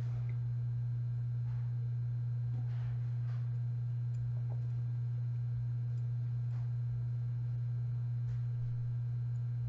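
A steady low hum, with a few faint soft rustles of fingers twisting dubbing onto fly-tying thread.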